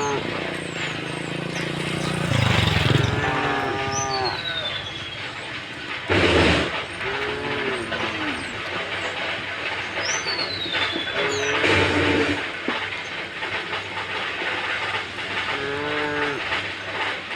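Cattle mooing again and again, several drawn-out calls that bend in pitch, with short falling bird chirps between them. Twice there is a brief loud rushing noise.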